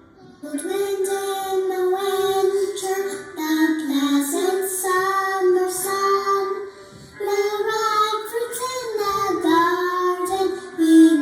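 A group of children singing a lively song, starting just after a short pause and breaking off briefly about seven seconds in between phrases.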